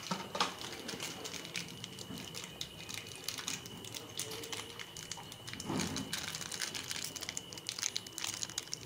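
Foil spice sachet crinkling with many small, irregular crackles as it is handled.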